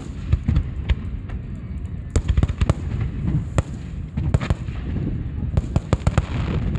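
Fireworks display: many sharp bangs from exploding shells in quick, irregular succession, several a second at times, over a continuous low rumble.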